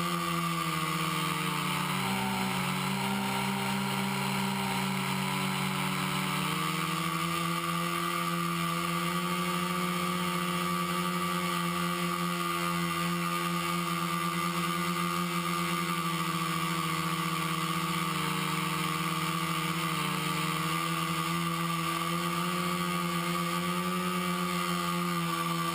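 Quadcopter's four brushless motors (Exceed RC Rocket 2215 920Kv) spinning 10-inch props in flight, a steady droning hum. About two seconds in the pitch dips and wavers as the throttle changes, then steadies again around six seconds, with a smaller wobble near twenty seconds.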